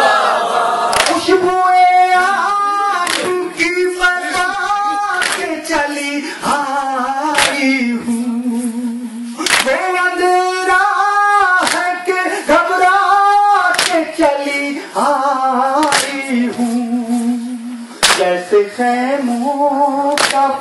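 A reciter singing a Shia noha lament in long, wavering held notes, while mourners beat their chests in matam, one sharp slap about every two seconds.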